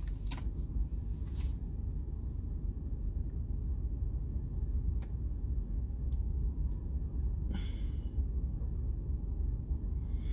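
Steady low rumble inside a car's cabin, with a few faint clicks and a short hiss about three-quarters of the way through.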